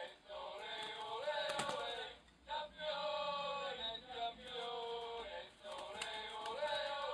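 Recorded Manchester United football chant playing: men's voices singing a short phrase over and over, with brief breaks between the repeats.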